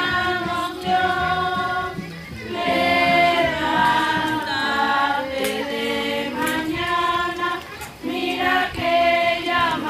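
A group of voices, mostly women's, singing together in long held phrases, with short breaks between phrases.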